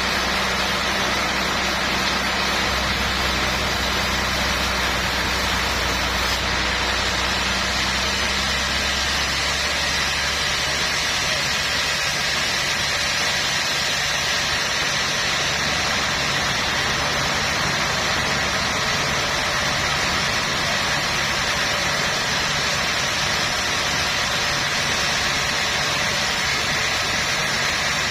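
Sawmill machinery running steadily with a constant mechanical noise. The low hum underneath shifts about ten seconds in.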